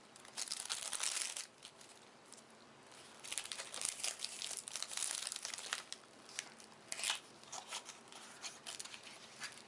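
Plastic shrink-wrap being torn and crinkled off a trading card game starter deck box, in irregular bursts of rustling and tearing with quieter pauses between.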